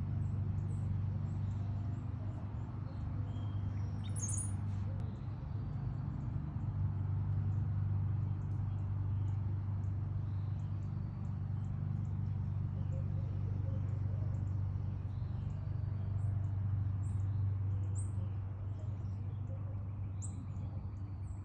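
Small backyard birds chirping: short, high chirps scattered throughout, a louder one about four seconds in. A steady low hum or rumble runs underneath and is louder than the chirps.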